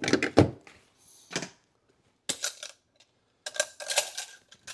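Metal measuring spoons clinking against small glass spice jars as seasonings are scooped out. There are several short bursts of clicks and clatters.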